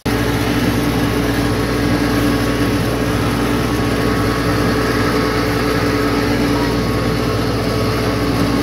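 Small blue tractor's engine running steadily as it is driven.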